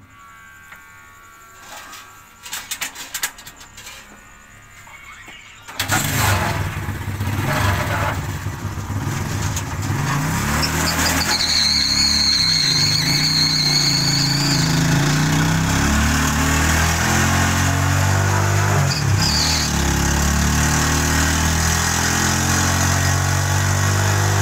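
A few knocks, then an engine catches suddenly about six seconds in: the small motorcycle-type starter engine used to crank a big flywheel diesel. The engine note shifts for a few seconds as it gathers speed, then settles into a steady run, with a high whine over it for a few seconds.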